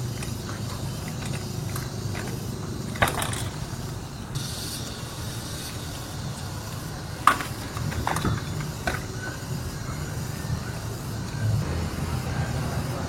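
Trials bike being ridden: a few sharp knocks and clatters of the bike landing and hitting obstacles, the loudest about seven seconds in, over a steady low rumble.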